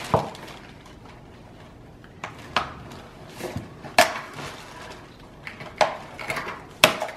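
Cardboard packing being worked loose from a new Nuna Mixx 2 stroller's frame. The handling gives scattered sharp knocks and clicks, about seven over several seconds, with quieter handling noise between them.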